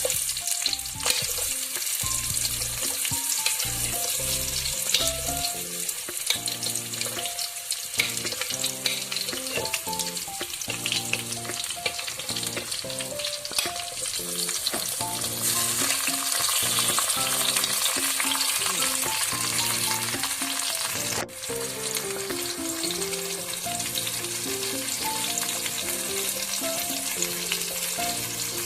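Food frying in hot cooking oil in a pan, a continuous sizzle and crackle, with a brief break about 21 seconds in. Gentle background music with a slow melody plays underneath.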